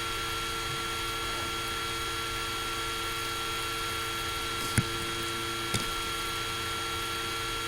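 Laptop cooling fan running steadily, heard through the laptop's own microphone as a loud even hum and hiss with a few steady whining tones. Two short clicks come about five and six seconds in.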